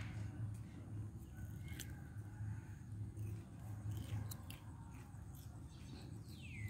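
Baby macaque biting and chewing a piece of raw cucumber: a few crisp crunches and clicks over a low steady hum. A bird's short falling whistle comes near the end.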